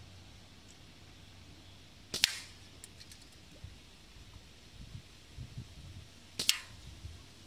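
Two sharp shot cracks about four seconds apart, each with a brief ring after it, as hanging aluminium drink cans are shot at; faint clicks and low knocks come between them.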